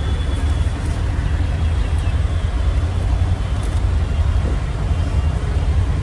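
Motor vehicle travelling on a road: a steady low rumble of engine and road noise.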